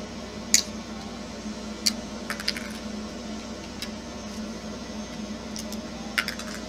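Side cutters snipping zip ties off an RC crawler's wiring: a handful of sharp clicks at irregular spacing, with small plastic handling rattles, over a low steady hum.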